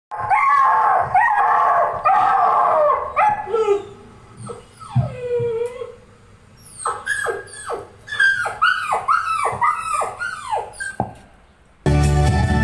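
Dog howling with a wavering pitch, then a long whine falling in pitch, then a quick run of short high yelps, each dropping in pitch.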